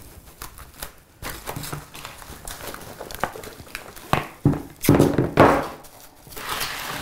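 A plastic seedling tray covered in food cling film being handled and set down on a table: crinkling plastic film and light knocks, with the loudest handling about four to five and a half seconds in.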